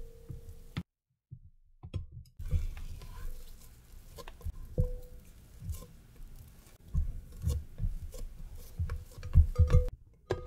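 Red silicone spatula scraping soft bread dough off a stand mixer's dough hook and around a glass mixing bowl, with irregular soft thuds and knocks. The glass bowl rings briefly when knocked, about five seconds in and again near the end.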